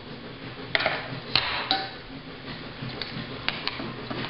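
Metal spoon stirring shredded carrots in a stainless steel mixing bowl, with a handful of sharp, irregular clinks and knocks as the spoon strikes the bowl.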